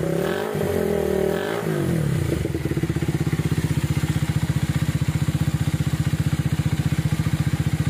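Minerva R150's single-cylinder four-stroke engine revved up and back down twice, then settling into a steady, even idle. It runs smoothly after a new piston, rings and camshaft, having earlier sounded rough and smoked white.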